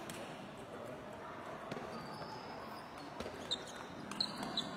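Scattered sharp clicks of table tennis balls from nearby matches over the steady murmur of a large sports hall, with a few short high chirps near the end.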